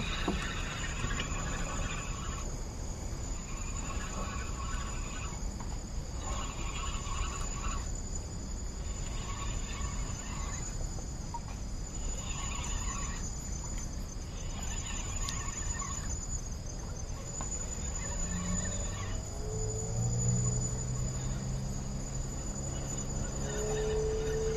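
Insects calling: a steady high-pitched trill with bouts of chirping that repeat every two seconds or so. A faint low hum joins near the end.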